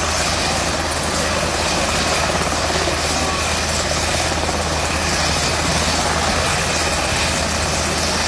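Helicopter running steadily close by: a constant loud din of rotor and engine.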